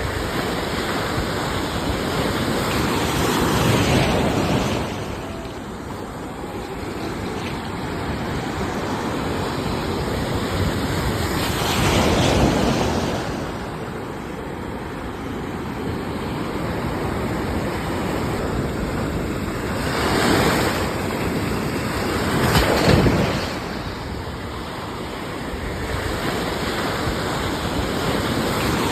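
Ocean waves breaking on a shore, with a steady rush of surf that swells into a louder break about four times, roughly every eight seconds.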